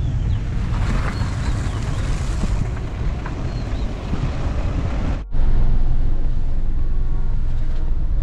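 Steady road and wind noise of a Wagon R Stingray on the move, heard from inside the cabin. It breaks off for an instant about five seconds in and comes back louder.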